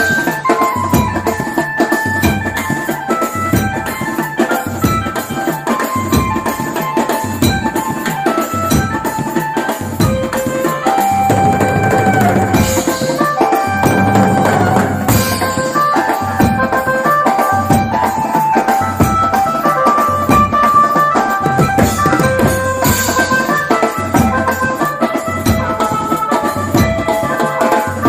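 Music with a steady drum beat under a melody of held notes.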